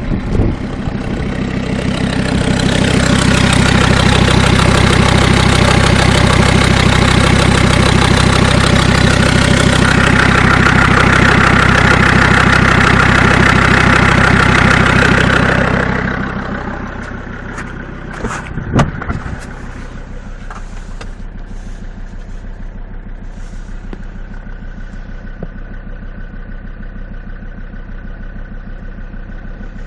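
Mercedes 2.7 CDI five-cylinder diesel engine held at raised revs for about fourteen seconds, then dropping back to a steady idle, with one sharp knock a few seconds after. It runs with a knock that the owner thinks comes from the hydraulic lash adjusters.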